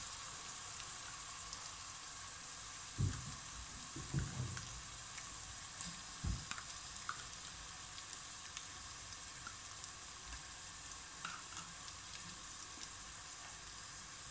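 Chopped onions sizzling steadily in hot oil in a stainless steel pot, with a few short low thuds about three, four and six seconds in.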